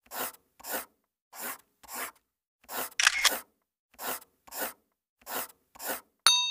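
Evenly spaced pairs of short scratchy hits, a pair about every 1.3 seconds, with a louder pair about three seconds in. Near the end a bright ding rings for about a second.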